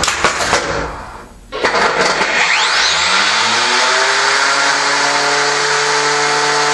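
Combat robot's electric motors whining steadily, with a few clicks at the start; the sound fades out about a second in, then starts up again suddenly and rises in pitch before holding steady.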